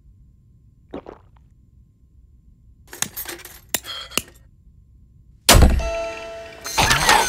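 Cartoon sound effects of a printer being fixed: a light knock, then clicks and metal clinks as a tool works inside the printer. About five and a half seconds in, the printer starts up suddenly and loudly, buzzing and whirring as it prints out the jammed page.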